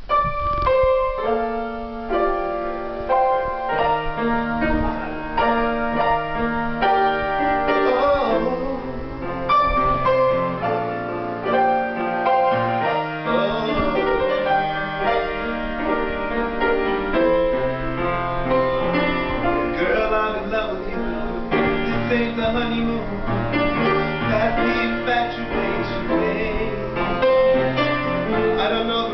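A grand piano being played, with chords and melody notes that are held and ring on, changing every second or so.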